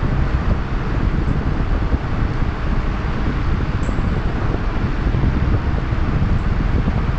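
Steady loud rushing noise, heaviest in the low end, with a few faint high ticks.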